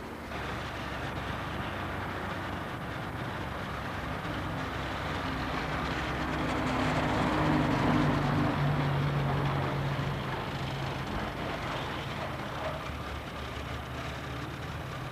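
A motor vehicle drives past on a street, its engine growing louder to a peak about halfway through and then fading, over steady traffic noise.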